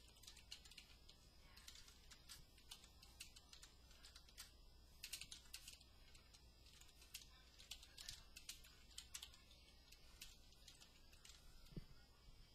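Computer keyboard being typed on: faint, irregular keystroke clicks as a sentence is typed out.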